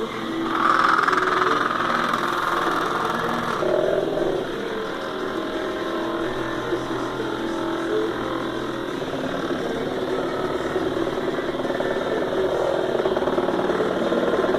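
CNC machine running, its motors whining in steady tones whose pitch shifts every few seconds as the machine changes moves.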